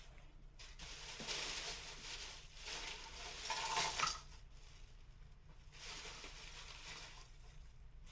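Rustling and light clinking as small Christmas decorations are handled, in several short spells. One brief chink about four seconds in is the loudest moment.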